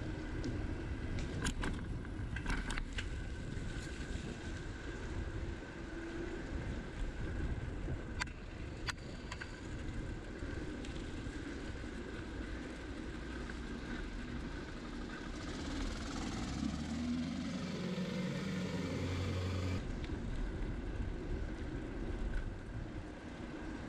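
Steady low rumble of wind and road noise on a camera carried by a moving bicycle, with a few sharp clicks in the first ten seconds. About 15 seconds in, a motor vehicle's engine grows loud, then cuts off suddenly near the 20-second mark.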